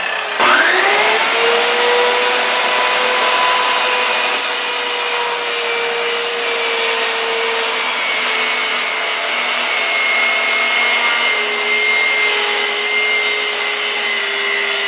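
Corded electric saw starting up with a quickly rising whine, then running steadily as it cuts through seven-ply marine plywood. Its pitch sags slightly about halfway through as it works under load.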